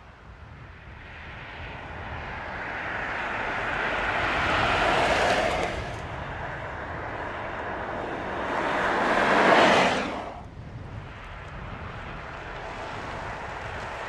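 Skoda Octavia Scout driving past twice, its tyre and engine noise swelling and then dropping away suddenly, about six seconds in and again about ten seconds in.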